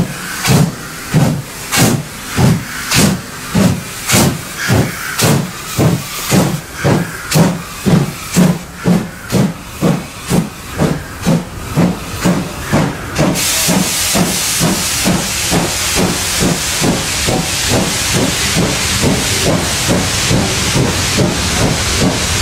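Two-cylinder class 50 steam locomotive 50 3648 passing close by under steam: sharp exhaust beats about two a second, with open cylinder drain cocks hissing. About 13 seconds in, the beats give way to the steady rolling rumble and hiss of the passenger coaches going by.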